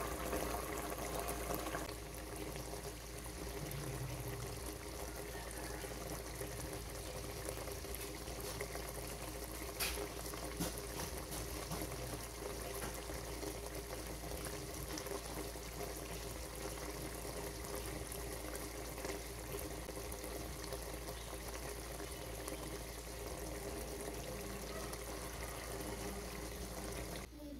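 Catfish curry in coconut milk simmering in a pot: a steady bubbling hiss, with a steady hum under it that eases about two seconds in. There is a single sharp click about ten seconds in.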